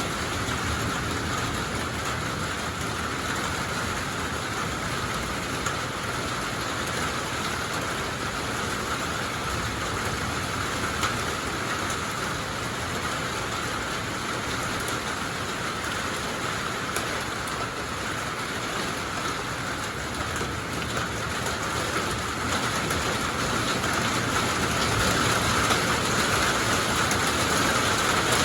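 Steady rain falling in a thunderstorm, a dense even hiss that grows a little louder near the end.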